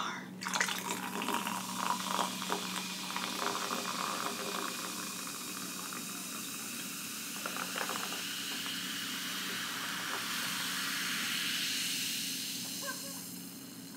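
Sparkling water fizzing in a freshly opened can close to the microphone: a steady hiss with fine crackling of bursting bubbles, thickest in the first few seconds. A lawn mower's steady hum runs underneath.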